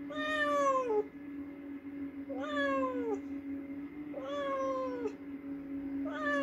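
Domestic cat meowing four times, about one every two seconds: long drawn-out meows that each drop in pitch at the end.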